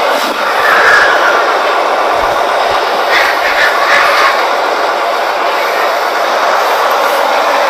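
A crowd of pigs screaming together in a dense, continuous din, with louder shrill squeals standing out about a second in and again around three to four seconds in. The pigs are being forced off a livestock truck into a slaughterhouse.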